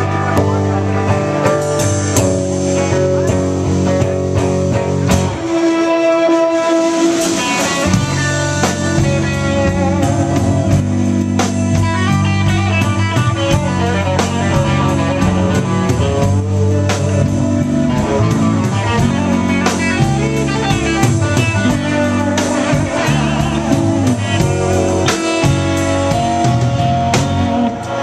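Live rock band playing loudly: electric guitars, bass guitar and drum kit. The bass and drums drop out for a couple of seconds about six seconds in, leaving a held guitar note, then the full band comes back in.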